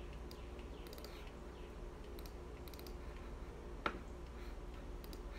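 Faint computer mouse clicks and keyboard taps over a low steady hum, with one sharper click a little before four seconds in.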